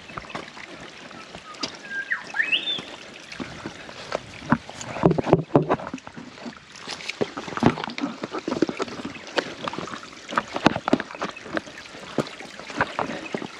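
Irregular footsteps crunching and knocking over dry rocks and leaf litter while scrambling up a dry creek bed, with a short rising whistle about two seconds in.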